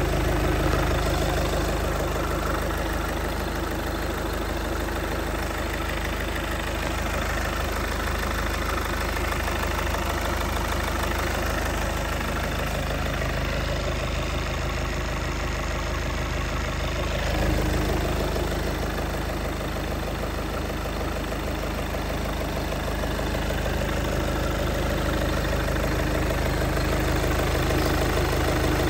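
2015 Volkswagen Golf TDI's 2.0-litre four-cylinder turbo diesel idling steadily, heard from the open engine bay.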